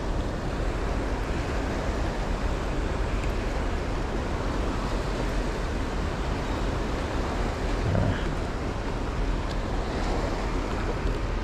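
Steady rushing noise of sea waves washing against a stone breakwater, mixed with wind on the microphone.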